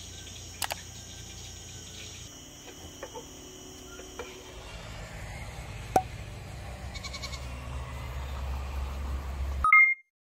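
Insects chirping steadily for the first few seconds, then wind rumbling on the microphone and growing louder, with a goat bleating once near the end.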